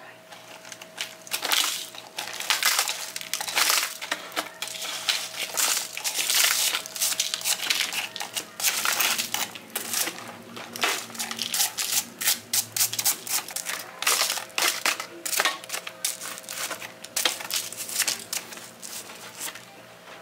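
Knife cracking and scraping away a hard, oven-baked salt crust from a whole tilapia, in many irregular crunches and scrapes.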